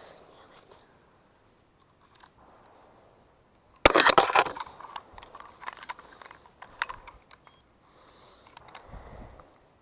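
Rustling and clattering handling noise, with a sudden loud burst about four seconds in followed by scattered sharp clicks.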